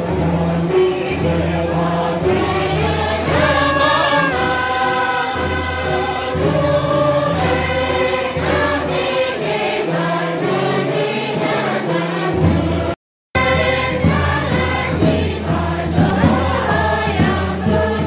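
A group of voices singing a song together over a steady instrumental backing with a low bass line. The sound drops out completely for a moment about thirteen seconds in.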